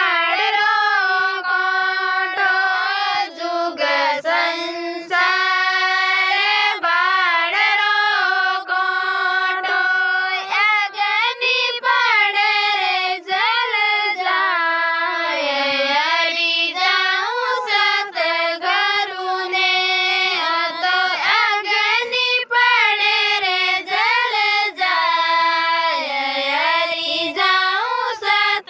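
A woman singing a Rajasthani devotional bhajan solo, with no instruments: one high voice holding long notes that slide and bend between pitches, with brief breaks for breath.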